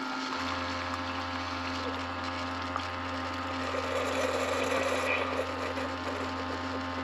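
Keurig single-serve coffee maker brewing: its pump hums steadily while coffee streams into a mug.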